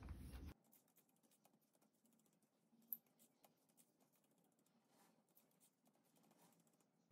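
Near silence with faint, scattered soft taps and rustles as brinjal slices are pressed and patted into fine semolina on a steel plate by hand, one tap a little stronger about three seconds in.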